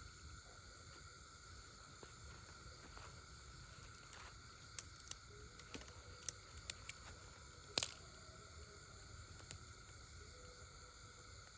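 Steady night chorus of crickets, with about six sharp clicks or cracks scattered through the middle, the loudest about eight seconds in.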